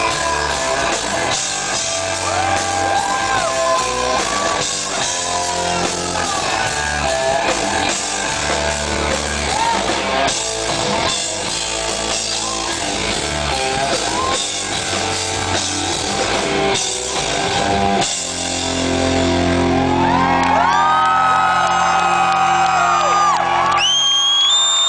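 Live rock band playing loud, with distorted electric guitars, bass and drums and a male voice singing. About eighteen seconds in the band holds one long chord while a lead guitar plays high bending notes over it.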